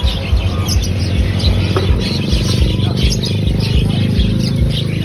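A crowd of birds chirping over one another, with a steady low hum underneath.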